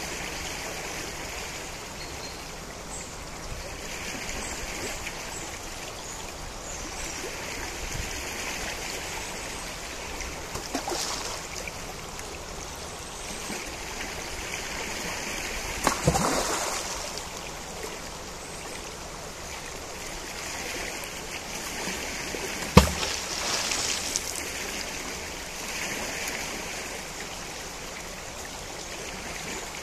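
Najerilla river flowing steadily over its bed, the rush of water swelling and easing every few seconds. Two brief sharp sounds cut through it, one about halfway and a louder one about three-quarters through.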